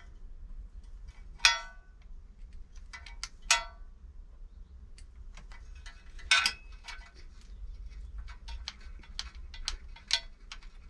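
Metal bolts and hand tools clinking and ticking as the engine-cover bolts of a Yamaha XVS 650 Drag Star are removed and handled. There are three louder, ringing clinks about two seconds apart, with lighter ticks between them.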